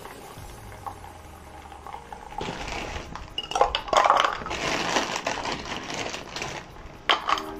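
Ice cubes dropped into a double-walled glass tumbler, clinking and rattling against the glass and each other. The clinks start about two seconds in and are densest about four seconds in, with one more sharp clink near the end.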